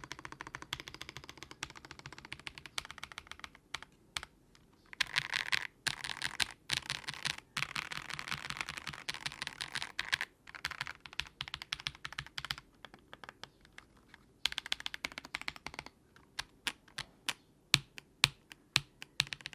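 Akko PC75B Plus mechanical keyboard with Akko CS Wine Red switches being typed on: fast runs of keystrokes broken by short pauses. Near the end come slower single key presses, a few a second.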